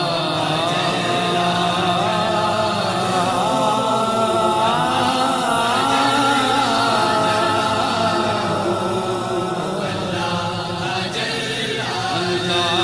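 Wordless vocal introduction to an Urdu hamd: voices hold a steady chanted drone while a melody glides and bends above it.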